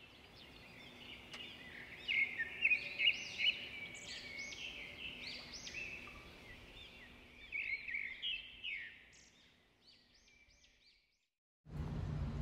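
Small birds chirping and twittering, many short quick calls overlapping, thinning out and fading about ten seconds in. After a moment of silence, a steady low outdoor rumble starts near the end.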